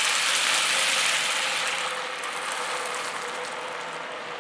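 Vegetable stock poured into a hot pan of butter-toasted brown rice, hissing and sizzling as it hits, loudest at first and slowly dying down.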